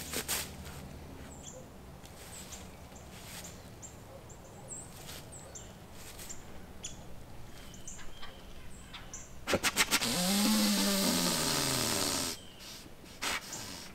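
White-tailed buck snort-wheezing: four quick puffs through the nose, then a long hissing wheeze of a couple of seconds that cuts off sharply, past the middle. This is the aggressive challenge a dominant buck makes toward a rival buck.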